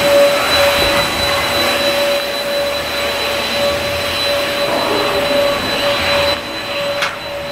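A steady motor whir with a constant high whine running through it, dropping somewhat in level about six seconds in.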